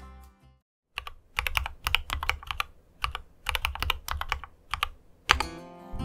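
Typing on a mechanical keyboard with Koala switches and POM Jelly keycaps. Quick clusters of key clacks run for about four seconds and end on one loud keystroke.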